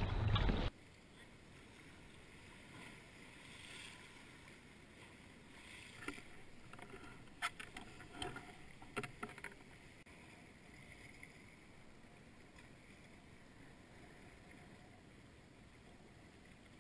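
Wind buffeting the microphone for under a second, then a cut to faint water lapping along jetty rocks. A scatter of sharp clicks and knocks falls around the middle.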